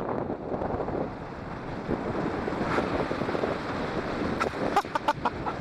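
Wind buffeting the microphone over a steady rush of surf. A quick run of sharp knocks comes about four and a half seconds in.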